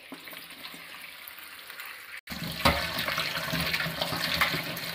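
Tap water running into a steel bowl of ash gourd pieces as they are rinsed by hand, with small knocks of the pieces against the bowl. The sound cuts out for an instant a little over two seconds in and comes back louder.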